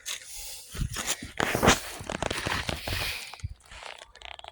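Irregular crunching and rustling of dry leaves and soil being disturbed, with several sharp scrapes about one to three and a half seconds in, dying down near the end.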